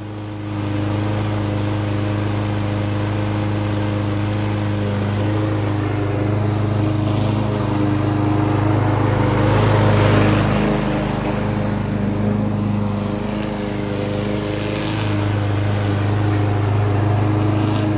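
Craftsman 6.0 push mower's single-cylinder four-stroke engine running steadily while it cuts grass, on a test cut after an engine swap. The note wavers slightly about halfway through.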